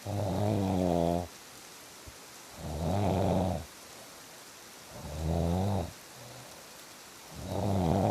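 A person snoring with a steady rhythm: four snores, one about every two and a half seconds. Each lasts about a second and has a clear pitch.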